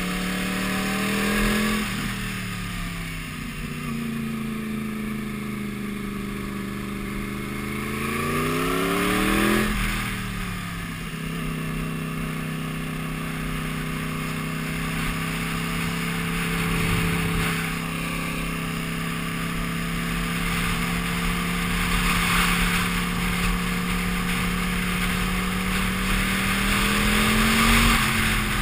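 A sport motorcycle's engine is heard from the rider's position, with wind rushing over the microphone. The engine note falls and climbs back over the first ten seconds, changes sharply, then holds steady at a constant cruise. It rises again near the end.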